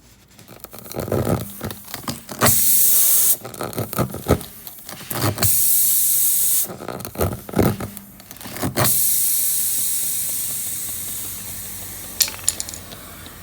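Air hissing out of a punctured run-flat tire in short bursts, the last one fading away over a few seconds, between knocks and rubbing from a tool being worked in the puncture.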